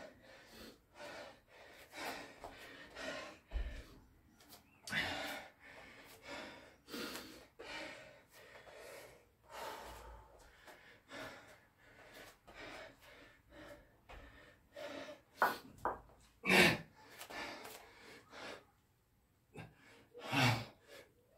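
A man breathing hard and gasping, winded from heavy sets of burpees and kettlebell thrusters. Irregular breaths throughout, with a few louder gasps later on.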